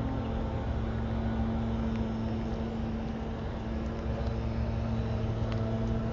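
Steady low engine hum with a constant drone over a rumble of street traffic.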